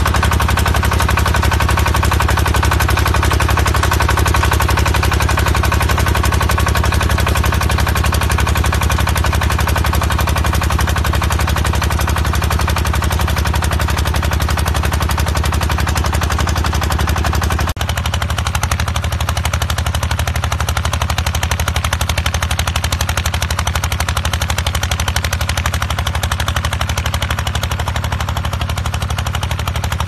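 Engine of a crawler rotary tiller running steadily under load while its tines churn soil, with a fast, even pulsing. About two-thirds of the way through it cuts abruptly to a similar engine with a duller tone.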